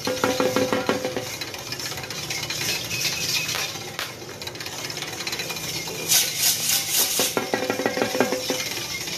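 Metallic jingling and clinking from a running pair of bulls' harness and the wooden wheel rig they pull round the pit. The sound rises into a quick rattle near the start and again near the end, with a bright jingle just before the second.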